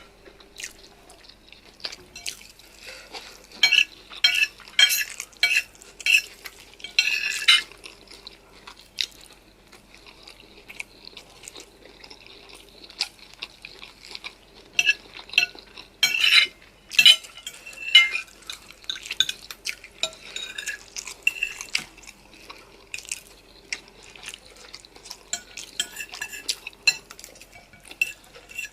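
Close-up eating sounds of spicy noodles and chicken: irregular wet chewing and mouth sounds, with utensils clicking and scraping against a bowl or plate. The busiest bursts come about four to seven seconds in and again around sixteen to eighteen seconds.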